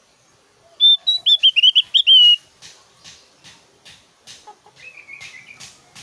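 Javan grey-throated white-eye (opior Jawa) giving a loud, rapid burst of sharp whistled notes about a second in, lasting about a second and a half: the hard 'tembakan' song that keepers prize. A short soft twitter follows near the end, over faint regular ticks about twice a second.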